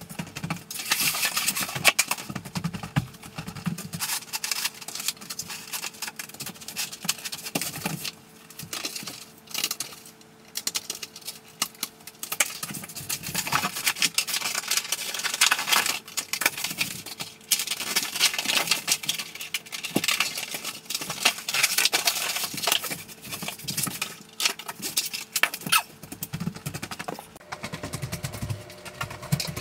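Sped-up floor-work noise: a rapid, jumbled run of clicks, scrapes and rustles from plastic underlayment membrane being unrolled and handled on a plywood subfloor, over a faint steady hum.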